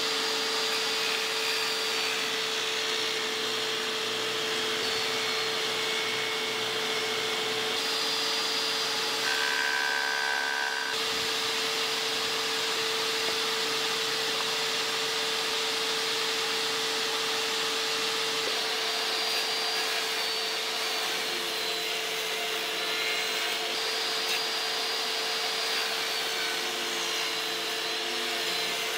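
Ridgid jobsite table saw fitted with a dado blade, running steadily while it rough-cuts tenons in African mahogany pushed through on a miter gauge.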